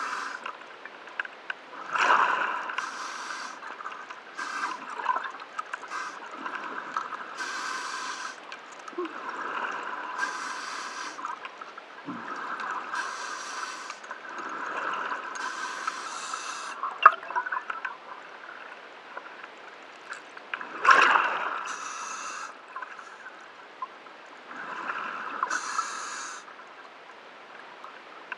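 Scuba diver breathing through a regulator underwater: a hissing inhale and a burst of exhaled bubbles, repeating every few seconds. The bubble bursts are louder about two seconds in and about twenty-one seconds in, with a sharp click near seventeen seconds.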